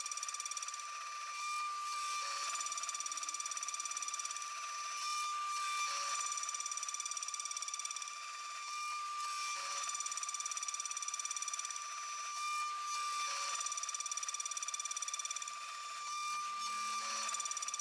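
CNC mill spindle running with a steady high-pitched whine while its end mill cuts steps into a metal step block on a trochoidal toolpath. The cutting noise pulses rapidly as the tool loops, easing off briefly every few seconds as the passes change.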